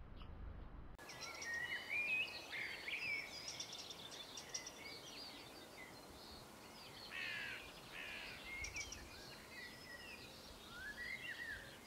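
A muffled low rumble for about a second, then several birds singing and chirping: quick rising and falling whistles and trills, some in rapid series, over a steady outdoor hiss.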